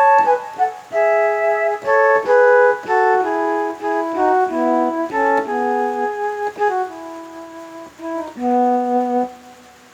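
Korg Pa700 arranger keyboard playing a melodic phrase of short and held notes on a sampled sound from a Yamaha PSR-550 set. The phrase ends about nine seconds in and dies away.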